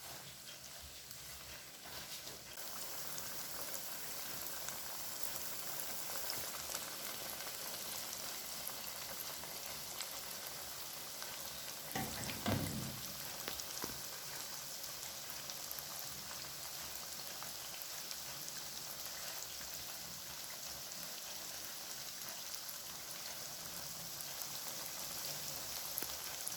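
Oat-coated chicken pieces deep-frying in hot oil, with a steady fine sizzle that grows stronger a couple of seconds in. A brief louder sound about twelve seconds in.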